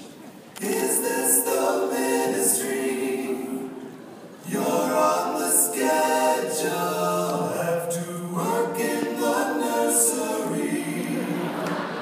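A group of voices singing a cappella in choral harmony, in held phrases with short breaks about half a second in and about four seconds in.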